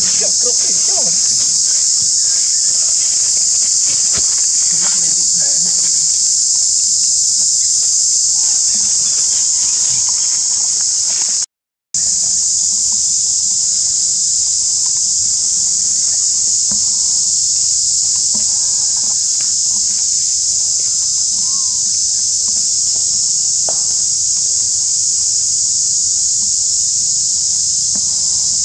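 Loud, steady chorus of insects in a dry forest: a continuous high-pitched buzz that drops out for a moment near the middle, with faint scattered short calls beneath it.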